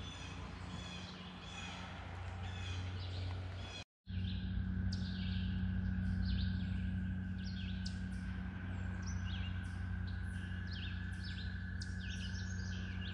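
Songbirds singing in woodland: many short, quick chirps and sweeping notes, denser after a brief dropout about four seconds in, over a steady low hum.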